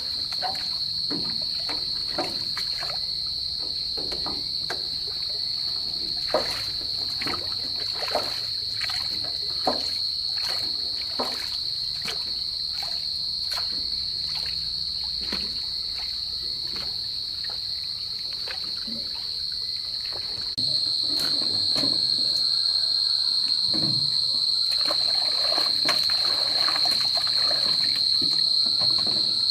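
Insects chirring in a steady high drone, over irregular sharp knocks and light splashing of water. The drone gets suddenly louder about two-thirds of the way through.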